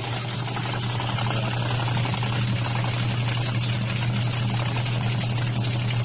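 Automatic washing machine, rewired to analog timers, running its spin cycle: a steady low motor hum under an even rushing noise from the spinning tub.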